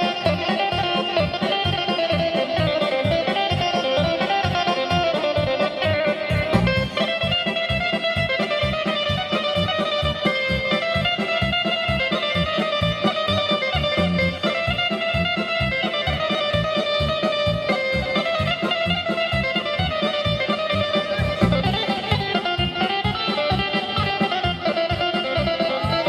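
Fast kolo folk-dance music with a quick, steady beat under a lead melody.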